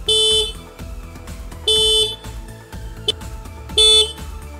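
Honda CD110 Deluxe motorcycle's single electric disc horn sounded in three short honks, each under half a second and about two seconds apart, a steady tone.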